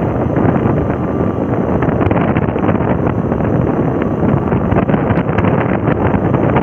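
Wind buffeting the microphone of a motorcycle riding steadily at about 40 km/h, with the bike's engine and road noise running beneath.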